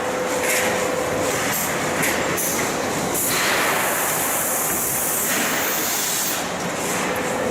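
KOHAN cut-to-length line for steel coil running, with a steady, loud mechanical noise of heavy machinery and a faint steady hum in the first second or so and again near the end.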